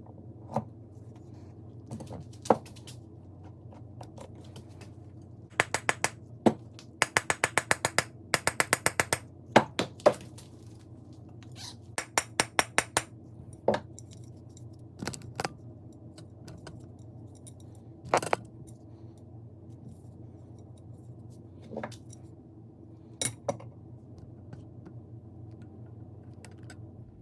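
A series of sharp clicks and clinks of hard objects, in scattered single strokes and quick runs of about four or five a second, over a steady low hum.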